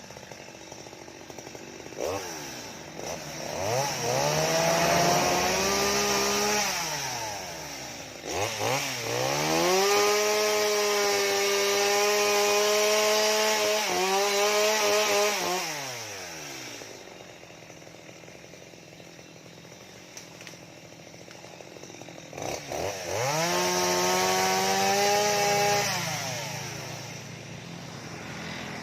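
Stihl MS 230 two-stroke chainsaw throttled up to full revs three times, each time holding steady for a few seconds before dropping back to a low idle. The longest burst is in the middle, and the last one comes near the end.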